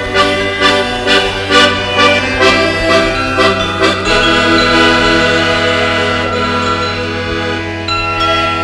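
Folk ensemble playing a slow piece led by accordion, with a struck note about once a second in the first half, then held chords from about four seconds in.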